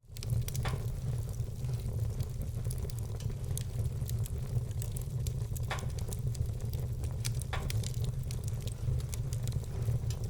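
Wood fire burning in a fireplace, a steady crackle of small ticks with three sharper pops from the logs, over a steady low rumble. The sound cuts out for an instant at the very start.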